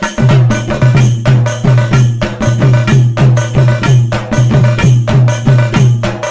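Intro music with a steady, driving percussion beat: deep bass hits about two to three times a second under sharp, bright percussion strokes.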